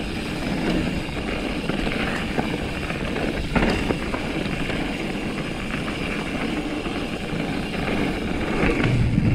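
Mountain bike rolling fast down a dirt trail: steady rushing tyre and ride noise with rattling from the bike, and a sharp knock about three and a half seconds in.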